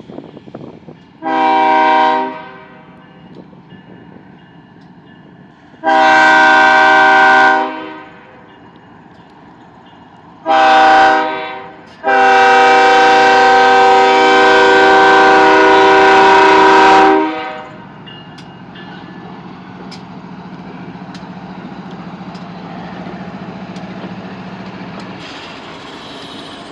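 Locomotive air horn sounding four blasts in several tones at once: the third is short and the last is held about five seconds, the pattern sounded on approaching a grade crossing. After the horn, the train runs past with a steady rumble.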